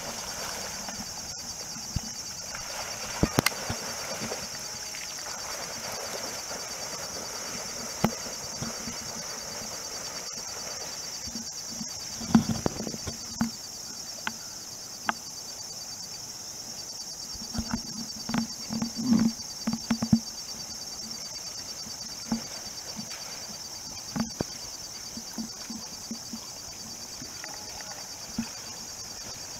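A dog swimming in a pond, with short low splashing and breathing sounds from its paddling, bunched about twelve seconds in and again from about eighteen to twenty seconds. Under it runs a steady high-pitched insect drone.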